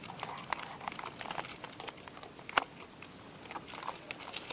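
Several raccoons moving about on a wooden deck and railing, a light, irregular patter of taps and clicks, with one sharp click about two and a half seconds in.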